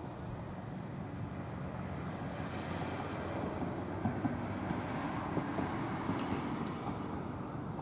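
Steady outdoor background at a football field between plays: a low, even rumble with a few faint knocks.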